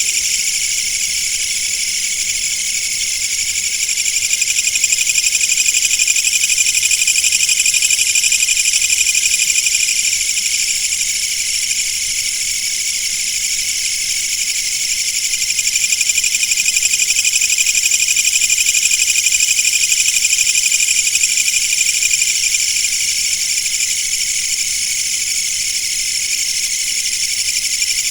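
Chorus of insects: a dense, high-pitched buzzing drone made of many layered voices, swelling and easing slowly every several seconds.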